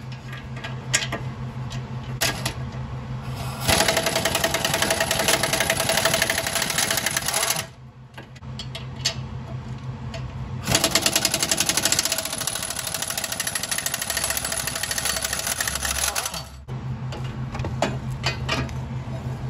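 Impact wrench hammering in two long bursts, the second longer, loosening the two nuts that hold the downpipe to the turbocharger. A steady low hum runs before and after the bursts.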